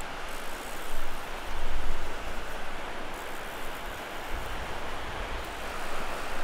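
Steady surf and wind noise, with wind buffeting the microphone in gusts about a second in, around two seconds in, and again between four and five and a half seconds.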